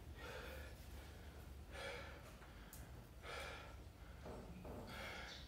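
A man breathing hard after a set of push-ups: four heavy breaths, about a second and a half apart.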